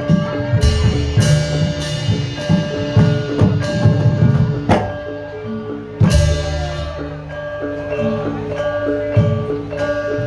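Javanese gamelan-style music: struck metal keys and gongs ringing in a steady pattern over hand-drum strokes, with a loud stroke about six seconds in.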